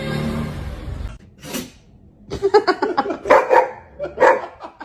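A dog barking in quick runs of short barks, starting a little over two seconds in. Before that, a steady low sound cuts off about a second in.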